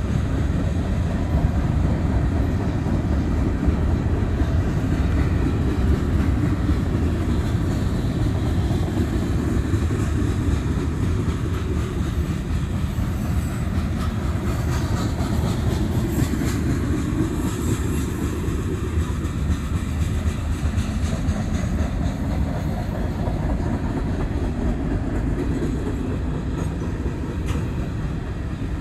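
Freight cars of a long mixed train, tank cars and hopper cars, rolling past: a steady low rumble of steel wheels on the rails.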